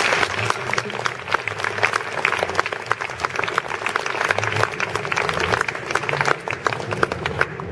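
Audience applauding: many people clapping in a dense, steady stream.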